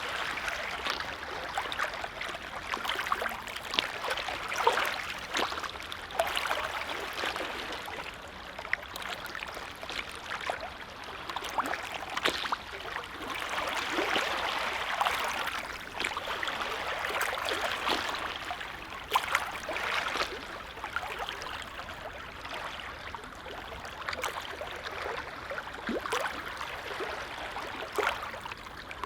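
Small lake waves lapping at the shore: a continuous watery wash dotted with little splashes and gurgles, swelling and easing every few seconds.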